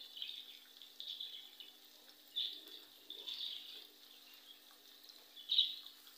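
Sliced onions sizzling in hot oil in a kadai, coming in uneven spurts of hiss about once a second, over a faint steady low hum.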